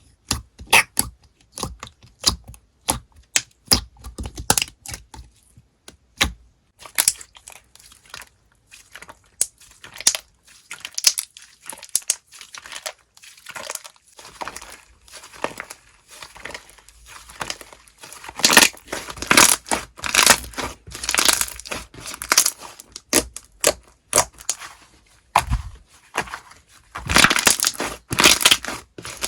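Slime being squished and stretched by hand, making a run of irregular sharp crackles, pops and sticky tearing sounds, busier and louder in the second half.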